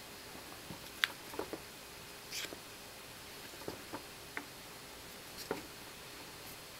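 Light clicks and soft scrapes of small picture cubes being turned and pushed together by hand: a handful of scattered taps, the sharpest about a second in, and a brief scrape about two and a half seconds in.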